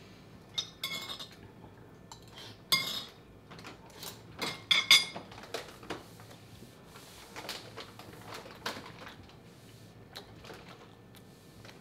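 Cutlery clinking and scraping against a dish as fried rice is eaten, in irregular strokes. The loudest clinks come about a second in, near three seconds, and around five seconds in.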